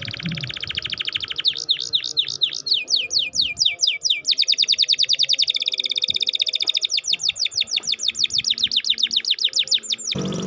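Domestic canary singing: a fast trill of down-slurred notes, then a few slower separate chirps, then a long rapid rolling trill that stops suddenly near the end.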